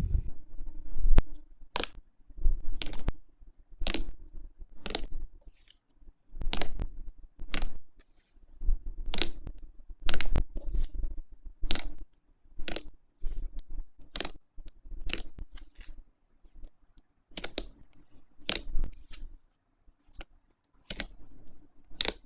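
Slime being pressed and squished by hand, giving a string of crisp pops and clicks, roughly one a second, each with a soft low squelch under it.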